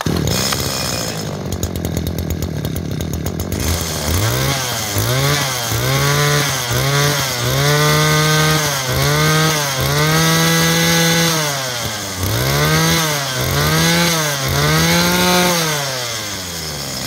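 Robin/Makita 21cc brush cutter engine running, idling for the first few seconds, then revved up and down about ten times, some blips short and some held for a second or more. The seller calls its compression very good.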